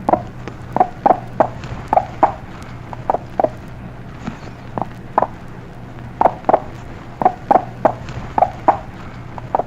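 Broody mother hen clucking as she walks: the "follow me" call to her chicks. The clucks are short and come in pairs and threes, roughly two a second, over a steady low hum.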